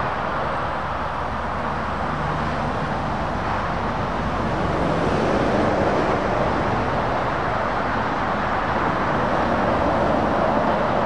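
Motorway traffic going past close by: heavy lorries and cars, a steady mix of tyre noise and diesel engines, a little louder around the middle and again near the end as lorries pass near.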